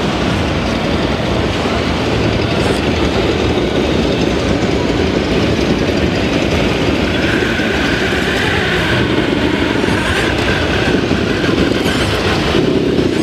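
Steady dense din of a busy model-show hall. Partway through, a thin whine rises above it for a few seconds, as the electric motor and gears of the RC scale crawler drive it through the mud.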